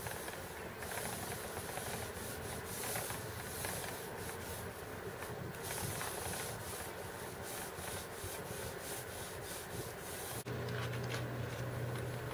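A paintbrush rubbing against a sailboat's hull in repeated scrubbing strokes, applying primer. A low steady hum comes in near the end.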